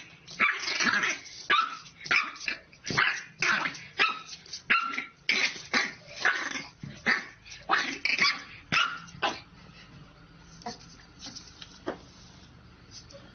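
Puppy yapping at its own reflection in a mirror: short high yips about twice a second, which thin out after about ten seconds to a few faint ones.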